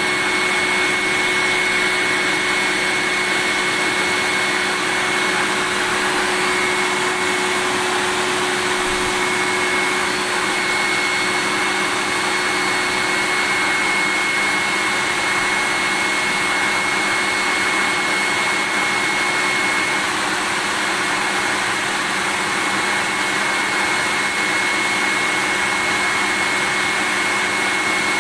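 Vacuum cleaner running steadily without a break: an even rushing hiss with a steady whine.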